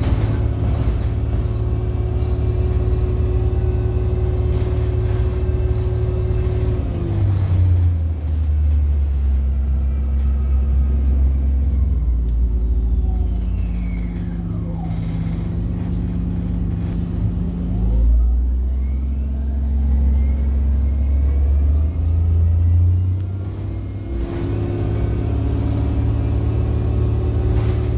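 Engine and drivetrain of a 2007 Orion VII 30-ft transit bus running, heard from inside the bus. The engine note drops about a quarter of the way in, stays low through the middle, and rises again near the end.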